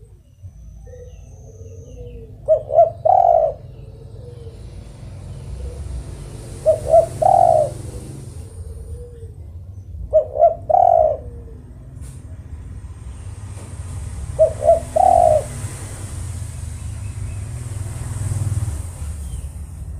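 Spotted dove cooing: four calls about four seconds apart, each two short quick notes followed by a longer coo. A steady low hum runs underneath.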